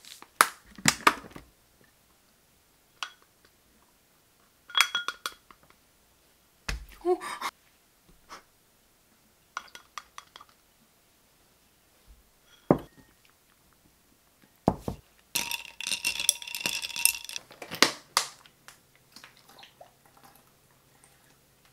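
Ceramic dishes, bowls and utensils clinking and knocking in scattered short bursts while food is served and set out, with a denser clattering stretch of about three seconds past the middle that has a ringing tone in it.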